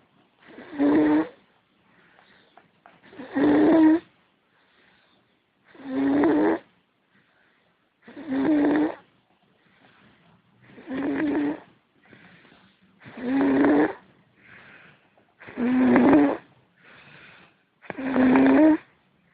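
A person snoring: a loud snore with a low buzzing pitch comes about every two and a half seconds, eight in all, with fainter breaths between them.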